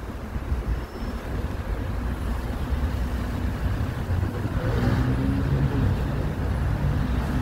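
Road traffic on a snowy city street, with a car engine passing close by about halfway through over a steady low rumble.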